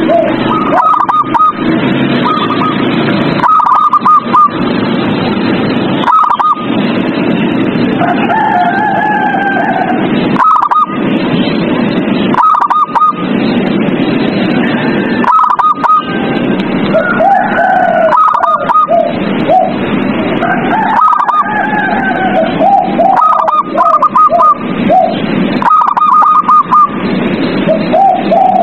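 Zebra doves cooing: short runs of quick, high staccato notes that recur every second or two, over a steady loud hiss.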